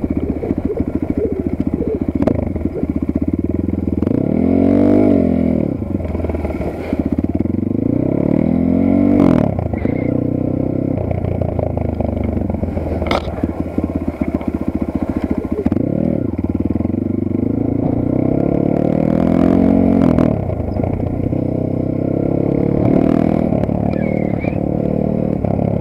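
Geon Dakar GNS300 enduro motorcycle's 300 cc engine running, its revs climbing and dropping back about five times as the throttle is opened and closed. A single sharp knock comes about halfway through.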